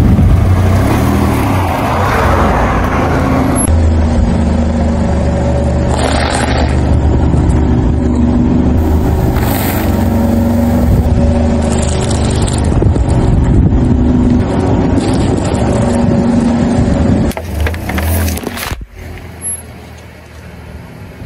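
Car engine running close by as the car rolls slowly over objects on asphalt, with crunching and scraping as they are crushed under the tyre. The sound drops off sharply near the end.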